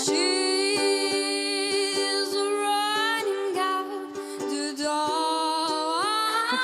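A young singer holding long wordless sung notes that bend and slide upward near the end, over a strummed string accompaniment.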